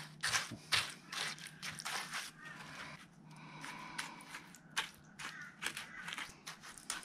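Small hand trowel scraping and scooping wet, gritty concrete, spreading it into the corners of a plastic pier-cap mould: irregular wet crunches and scrapes, several a second.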